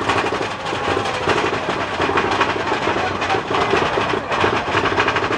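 Big Thunder Mountain Railroad mine-train roller coaster running along its track, its wheels and cars clattering and rattling steadily.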